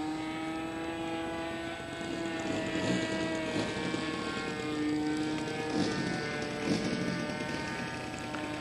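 Supertigre G90 two-stroke glow engine of a radio-controlled model F-14 in flight, a steady high buzz whose pitch shifts a little up and down as the plane manoeuvres.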